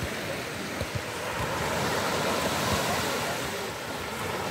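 Surf washing onto a sandy beach, swelling a little in the middle, with wind buffeting the microphone.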